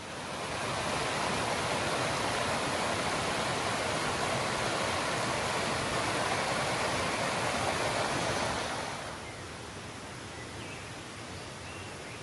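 Steady rush of flowing stream water that swells up within the first second and fades back down about nine seconds in.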